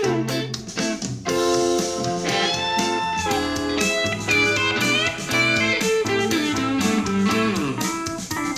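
Blues music led by electric guitar, with bent and sliding notes, played back through a small portable Bluetooth speaker for a sound test.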